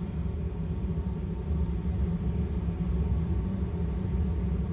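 Steady low rumble of background noise, unchanging, with no distinct clicks or knocks.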